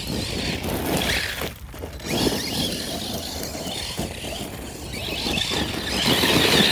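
Arrma Granite 4x4 3S BLX 1/10-scale RC car's brushless motor whining as it drives hard on gravel, tyres crunching and scattering stones. It drops off briefly about one and a half seconds in, then builds to its loudest near the end.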